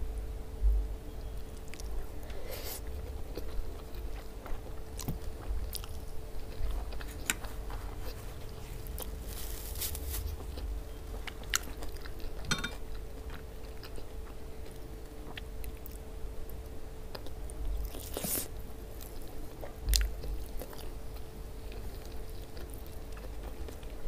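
Chewing and wet mouth sounds of someone eating okra stew with meat and rice, with irregular smacks and clicks.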